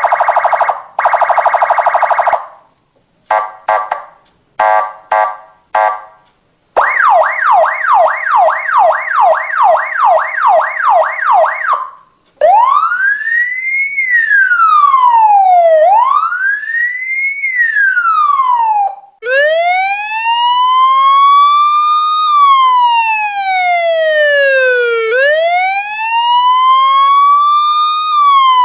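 Electronic police siren cycling through its tones: a steady buzzing horn for about two seconds, a string of short horn blasts, a fast yelp of about two falling sweeps a second, then slow rising-and-falling wails that change to a slower wail about two-thirds of the way through.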